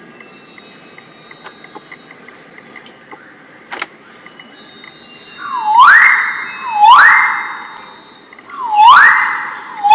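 Magnificent riflebird calling: loud whistles that each dip briefly, then swoop up to a held high note. They come in two pairs, starting about halfway through.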